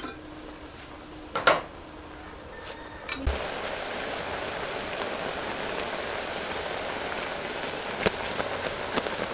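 Chicken broth simmering in an open aluminium pot on a gas burner: a steady bubbling hiss that comes in about three seconds in, after a single loud metal clank. Light clinks of a knife and spoon against the pot come near the end.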